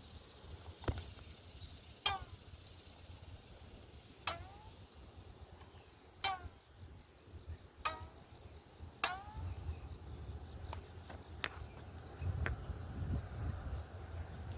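A taut, snagged 20-pound braided fishing line being plucked like a guitar string. About six short twangs come over the first nine seconds, each sliding down in pitch, followed by a few fainter ticks and a low rumble near the end.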